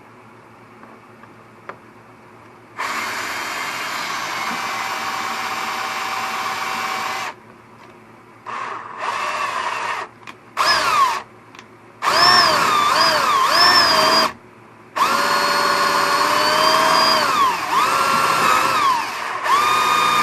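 Power drill enlarging a hole in a plastic panel, run in bursts. There is a steady run of about four seconds, then several shorter runs whose motor pitch rises and falls as the trigger is worked.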